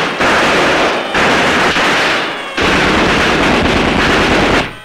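Thompson submachine gun fire: three long bursts of rapid automatic shots with short breaks between them, the last burst the longest, about two seconds.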